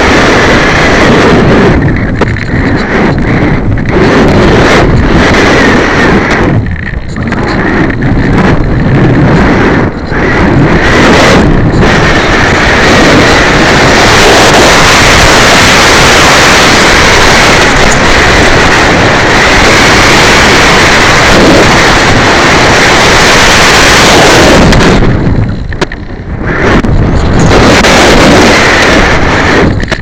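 Loud rushing wind and airflow noise buffeting the microphone of a keychain camera riding on a flying RC sailplane. It surges and eases, with a few brief lulls.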